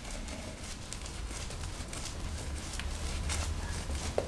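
Silvertip badger shaving brush face-lathering shaving cream, a soft, irregular run of swishing brush strokes on the skin over a low hum.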